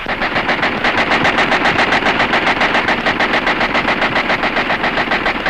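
Machine gun firing one long continuous burst of rapid, evenly spaced shots.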